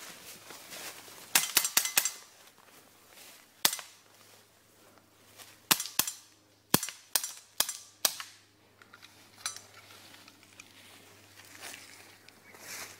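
Airsoft guns firing single shots: about a dozen sharp pops in irregular groups, a quick run of four at first, then scattered shots and a run of five near the middle.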